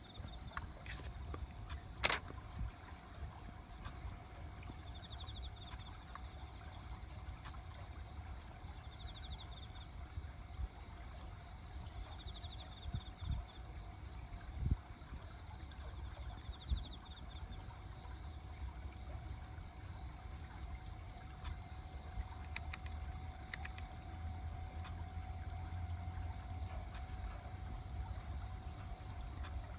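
Insects singing steadily in a high, pulsing trill, with short chirps from another insect repeating every few seconds. A low rumble lies underneath, and there is a sharp click about two seconds in.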